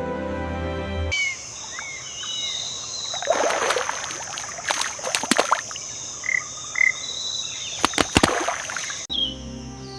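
Music cuts to a wetland nature ambience: a steady high insect drone, short gliding bird chirps and several water splashes, with two short calls about six and a half seconds in. Music comes back about nine seconds in.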